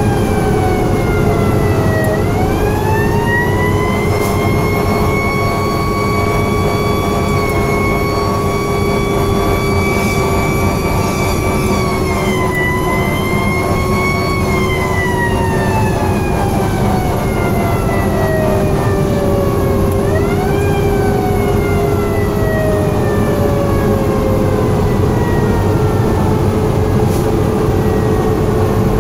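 Federal Q mechanical siren on a fire engine, heard from inside the cab. It winds up and holds a steady wail, dips and rises again about halfway through, then coasts slowly down in pitch. About two-thirds of the way in it winds up once more and coasts down again. A steady lower tone runs underneath.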